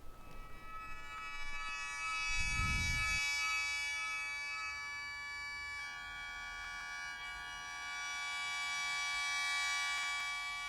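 Sho, the Japanese mouth organ of 17 bamboo pipes, sounding a sustained chord that fades in and shifts to a new chord about six seconds in, with a few faint plucked koto notes. A dull low thump comes about two and a half seconds in.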